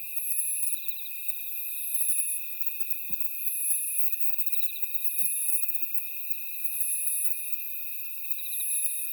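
Night chorus of grass insects (crickets and katydids): a steady high-pitched trill runs on unbroken. Over it, a still higher buzzing phrase swells and stops about every one and a half seconds.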